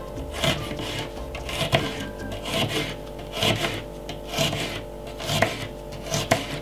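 Kitchen knife slicing a red onion on a wooden chopping board: about seven slow cuts, roughly one a second, each a short stroke ending against the board. Background music plays underneath.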